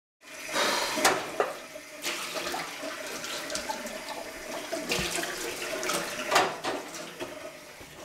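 Kitchen tap running into a sink during washing-up, with a few sharp clinks and knocks of dishes against the sink.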